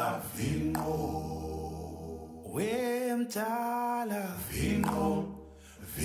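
Background music of a cappella vocal singing, with a voice holding long, wavering notes around the middle.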